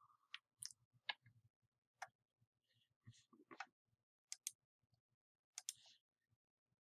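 Faint computer mouse clicks, about ten short irregular clicks scattered through near silence.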